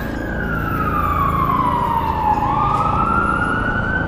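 A siren wailing: its pitch falls slowly for about two seconds, then rises again, over a low rumble.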